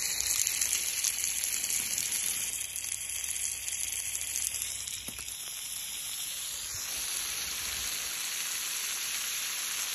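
Water spraying and splashing onto grass, a steady hiss that eases a little after about five seconds.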